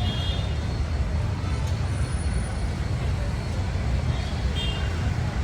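Street traffic: a steady low rumble of vehicle engines, with short high-pitched tones near the start and again about four and a half seconds in.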